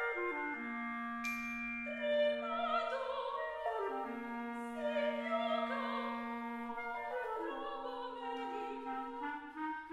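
Contemporary chamber music: two sopranos singing held notes over clarinet and percussion, one singing clipped syllables of a long Ancient Greek word, the other an 'O' with the mouth nearly closed. A bright struck percussion note rings out about a second in.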